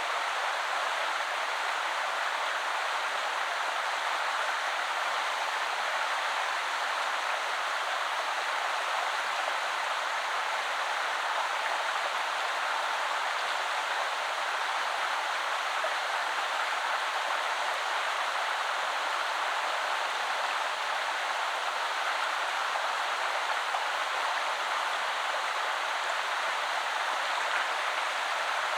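River flowing: a steady, even rush of water with no breaks or separate splashes.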